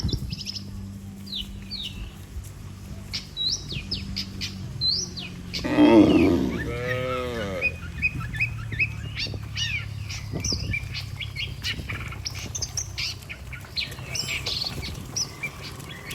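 Small birds chirping and twittering throughout, with a single long, loud cow moo about six seconds in. A faint low steady hum lies underneath.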